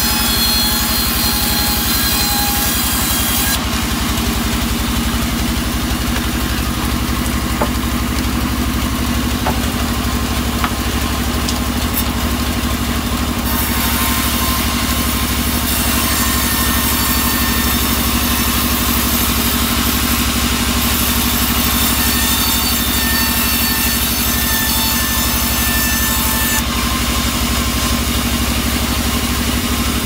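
Large band sawmill running steadily, its blade resawing boards of albasia (sengon) wood as they are pushed through, over a constant low machine drone.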